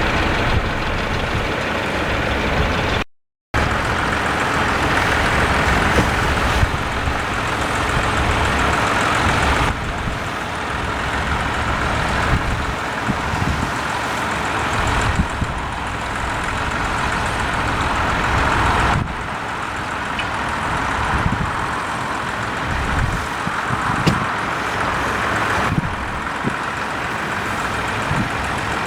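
Vintage farm tractor engines running, heard as several short clips joined with abrupt cuts, with a brief dropout about three seconds in.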